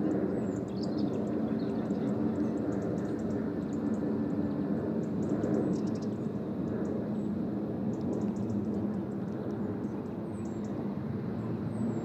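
A steady low motor drone with a constant pitch throughout, with faint high ticking above it and a couple of short bird chirps near the end.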